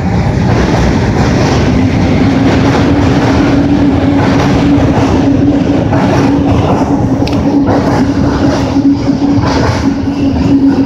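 Market–Frankford Line subway-elevated train running past, a loud steady rumble of wheels on rails with a steady hum coming in about a second and a half in.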